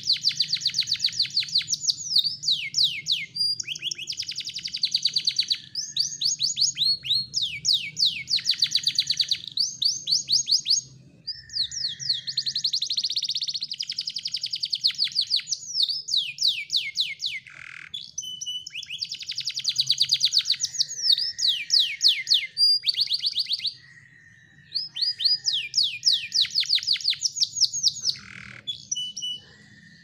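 Domestic canary singing: long runs of fast, rapidly repeated trilled notes, broken by a few short pauses.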